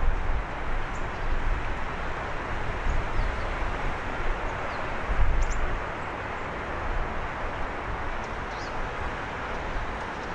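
Steady outdoor hum of distant city traffic, with irregular low rumbles and a few faint, short bird chirps.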